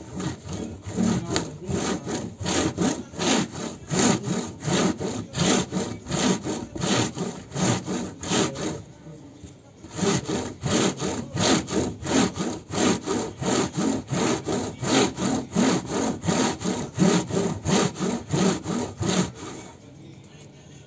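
Bamboo rolling mat rubbed back and forth over a wet fibre dreadlock, a rhythmic wooden scrubbing of about two to three strokes a second as the fibres are wet-felted. It pauses briefly about nine seconds in, resumes, and stops near the end.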